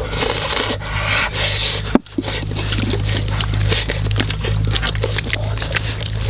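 Wet clicking and squishing of hands rubbing sauce over a raw whole chicken, with a steady low hum underneath. The sound drops out briefly about two seconds in.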